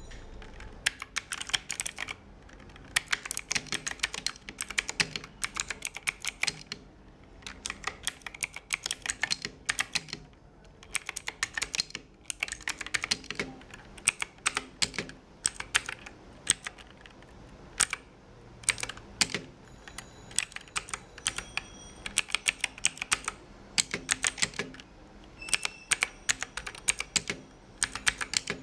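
Typing on a Bajeal K100 mechanical keyboard with Outemu blue switches: rapid runs of sharp key clicks in bursts, with short pauses between runs.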